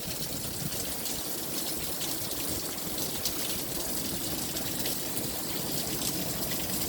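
Steady rain falling, an even hiss with fine scattered patter of drops.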